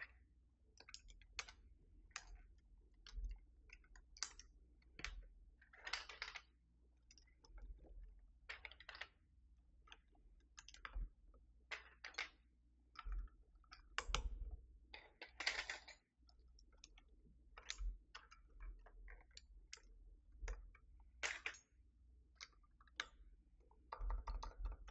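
Keys of a Keychron V6 Max mechanical keyboard being pressed one at a time, as sharp, irregular clicks and clacks about once or twice a second.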